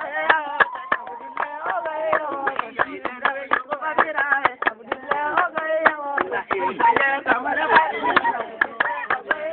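A group singing over fast, rhythmic hand-clapping, about four claps a second, driving a dance.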